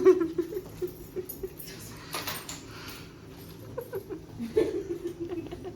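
A dog whining in short low whines, with a brief rattle about two seconds in.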